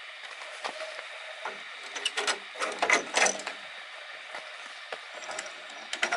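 Clicks, knocks and light rattles of carbon oar shafts and their fittings handled by hand, loudest in a cluster about two to three and a half seconds in, over a steady hiss.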